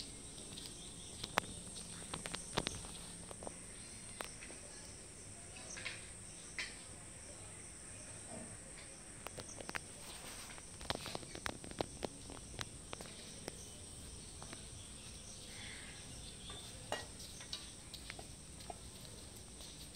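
Steady high-pitched insect chirring in the background, with scattered short clicks and knocks.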